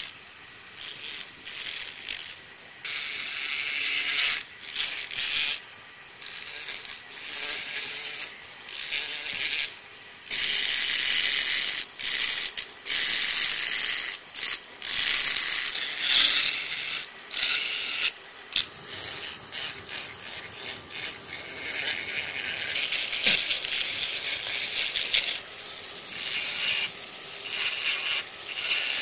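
A small handheld carving tool cutting and scraping into wood, in short irregular bursts of scratchy noise with brief pauses between strokes.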